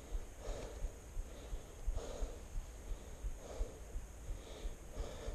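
A man breathing hard and loud after heavy exertion, one heavy breath about every second and a half.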